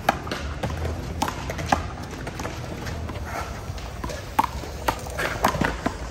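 One-wall handball rally: sharp smacks of the small rubber ball struck by hand and rebounding off the concrete wall and court, with players' shoes scuffing the asphalt between hits. The smacks come a little after the start, twice around a second later, and in a quick cluster about four to five and a half seconds in.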